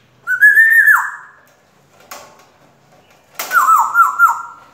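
African grey parrot whistling: one held whistle that drops off sharply, a short click, then three or four quick falling whistle notes near the end, with its wings flapping.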